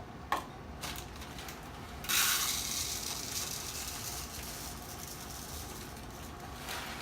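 Dry uncooked rice grains pouring into a cup: a rattling hiss that starts suddenly about two seconds in and slowly trails off, after a couple of light clicks.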